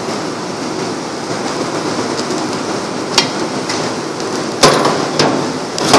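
Metal ladle stirring chicken stew in a large aluminium pot, knocking sharply against the pot four times in the second half, over a steady background roar.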